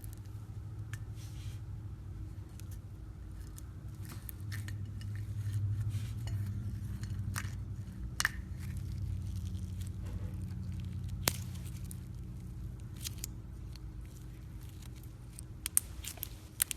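Slime being squeezed and stretched by hand, a soft wet squishing broken by scattered sharp pops and clicks, the loudest ones about halfway through and twice near the end.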